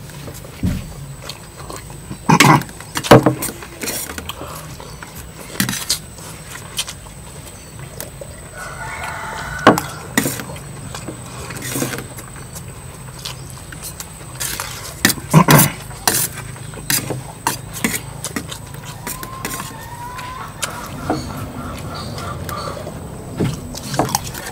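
A rooster crowing twice, each crow lasting about a second and a half, amid scattered sharp clicks and knocks.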